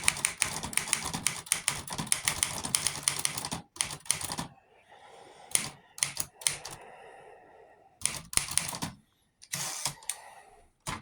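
1951 Smith Corona Skyriter portable typewriter being typed on, its typebars striking a platen with new rubber. A fast, dense run of key strikes for the first few seconds, then a pause, a few single strikes and short bursts of typing with gaps between them.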